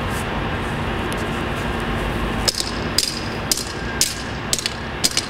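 Hammer striking vice grips clamped onto a driven copper grounding rod to work the rod back out of the ground: sharp metallic blows about two a second, starting about halfway through.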